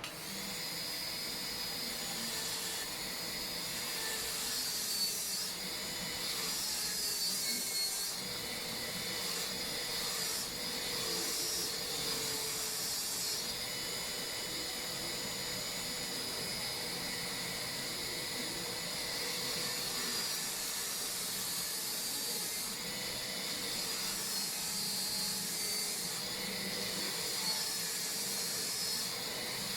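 High-speed dental handpiece running with a steady high whine and hiss while cutting a cavity preparation in a molar. Its pitch wavers now and then as it bears on the tooth.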